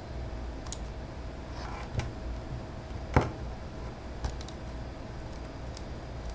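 A few sharp plastic clicks and knocks as a tablet's plastic back housing is handled and pressed onto its frame, the loudest about three seconds in, over a steady low hum.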